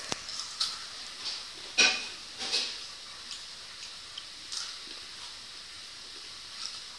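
Hot Cheetos being crunched and chewed: a few scattered sharp crunches and clicks, the loudest about two seconds in, thinning out toward the end.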